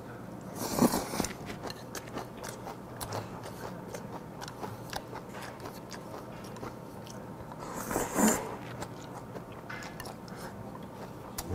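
Close-miked eating sounds: chewing a mouthful of raw silchi (young gunnel fry) mixed with spicy seasoned vegetables, with many small wet clicks and two louder bursts, about a second in and again about eight seconds in.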